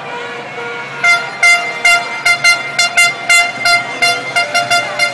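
Horns honking in short repeated blasts, about two to three a second, over a held horn tone that sounds alone for the first second.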